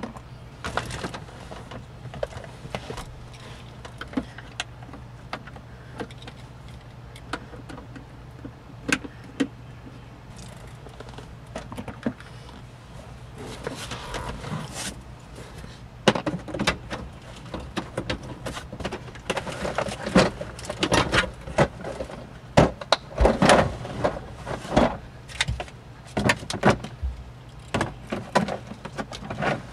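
Plastic center-console parts of a 1998 Ford Expedition being handled and fitted back together: scattered clicks, knocks and rattles, growing busier and louder about halfway through, over a faint steady hum.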